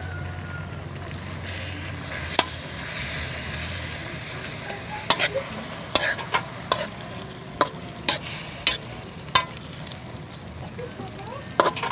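A metal spatula stirring and scraping in a large metal wok, with a string of sharp clinks from about five seconds in, over a steady sizzle of the frying mixture.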